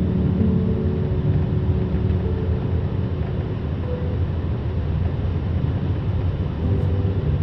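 Waterfall water rushing, loud and steady, with soft background music faintly underneath.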